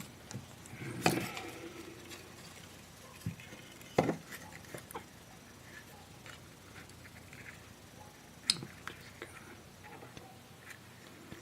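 A few scattered light clicks and knocks, loudest about a second in, again at four seconds and once more past eight seconds: small parts handled on a workbench as wires are fed through a circuit board.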